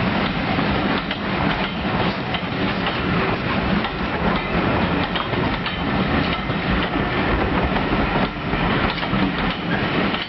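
Railway passenger coaches of a steam-hauled train rolling past close by, with the steady rumble of the wheels and many clicks and clatters over the rail joints.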